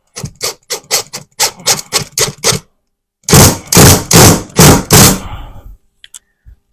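A screw being driven through a drywall patch into the wood behind it: a quick run of sharp clicks, then several loud bursts of driving about three seconds in.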